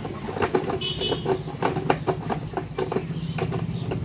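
Repeated small clicks and knocks from handling the mixer grinder and its wiring, over a steady low hum, with a brief high squeak about a second in.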